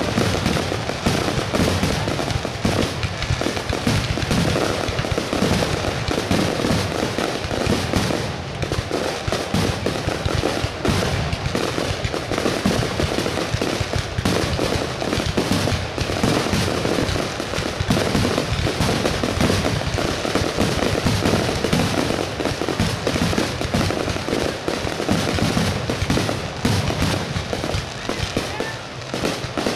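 Fireworks finale barrage: aerial shells bursting in quick, overlapping succession with crackling, a continuous rapid-fire din with no pauses.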